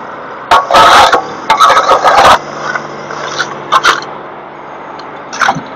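A tractor loader's bucket scraping burnt debris along the pavement in several harsh bursts, the engine running with a steady hum between them.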